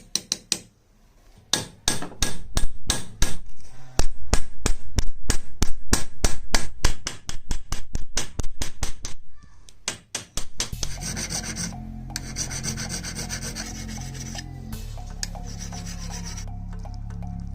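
Quick repeated hand strokes of metal rubbing against a file or abrasive, about three or four a second. About ten seconds in, the strokes stop and a steady low hum takes over.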